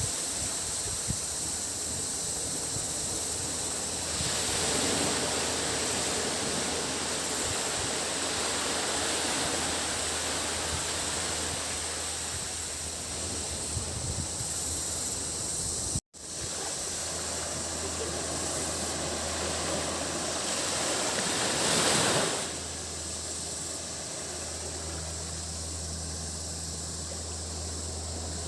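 Sea waves washing onto the beach in a continuous hiss, swelling about four seconds in and again near the end, under a steady high drone of cicadas. The sound drops out for an instant about halfway through.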